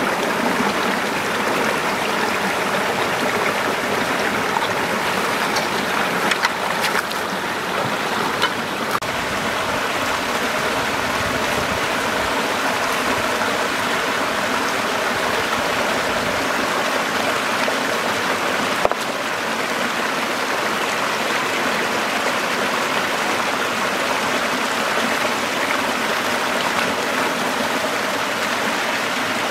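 Shallow rocky stream rushing and splashing steadily over stones. A few brief clicks sound in the first third, and a sharper one about two-thirds through.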